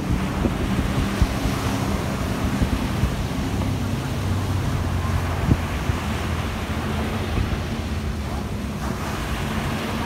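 Small waves breaking and washing up a sandy beach, a steady surf wash, with wind buffeting the microphone as a low rumble and a few brief knocks.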